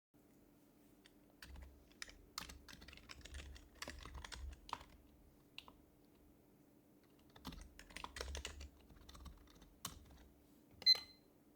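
Typing on an HHKB Professional HYBRID Type-S keyboard's silenced Topre keys, in two quick bursts of soft keystrokes. A single short, high electronic beep sounds near the end, louder than the typing.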